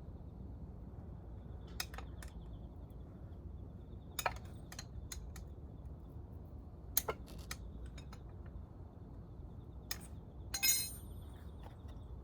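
Metal tools and parts clinking and clicking now and then during motorcycle engine disassembly, over a steady low hum. The loudest clink, near the end, rings briefly.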